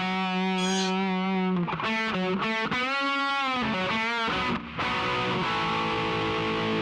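Intro music: distorted electric guitar playing a riff of sustained notes, ending on a held chord.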